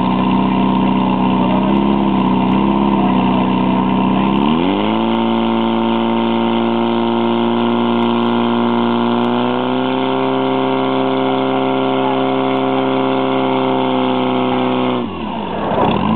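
Portable fire pump engine running loud and steady under load, pushing water out to the hose lines; it revs up about four seconds in and a little more a few seconds later, then its pitch dips sharply and recovers near the end.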